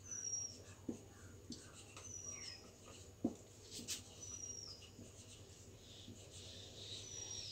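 Marker writing on a whiteboard: faint rubbing strokes with short high squeaks that drop in pitch, about every two seconds.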